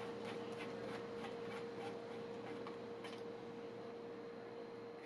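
Faint light clicks, about three a second at first and then sparser, over a steady low hum.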